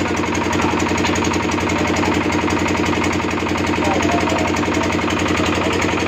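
An engine running steadily at idle with a fast, even throb.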